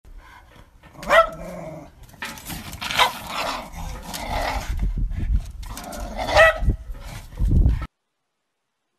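A dog barking a few times, with low growls in between; the sound cuts off suddenly near the end.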